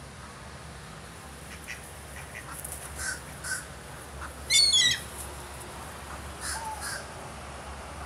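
Gulls calling: a few short calls, then a loud harsh squawk about halfway through, and two more short calls near the end.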